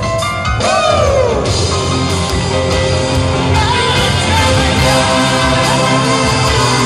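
Live rock band playing, with singing over electric guitars, keyboards and drums. A long swoop down in pitch comes about a second in.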